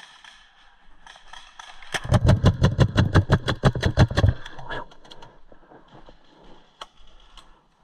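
Tippmann A-5 paintball marker firing a rapid burst of about twenty shots in a little over two seconds, close to the microphone. A few fainter pops follow.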